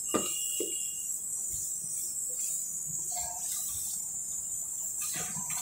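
Hands rubbing and mixing crumbly flour dough of maida, ghee and curd in a stainless steel bowl, a few soft scraping strokes, under a steady high-pitched whine.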